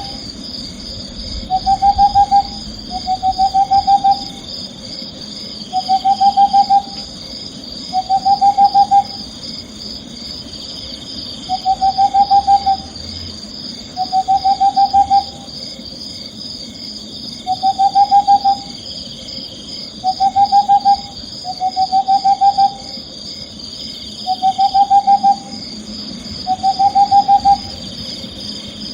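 An owl calling over and over: about a dozen short, fast-trilled calls, each slightly rising and under a second long, one roughly every two seconds. Behind it runs a steady high-pitched chirring.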